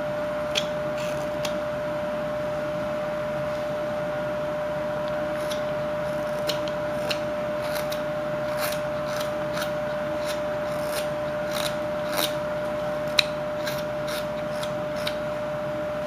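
Whittling knife slicing shavings from a wood block: short, irregular scraping cuts that come more often in the second half, over a steady hum.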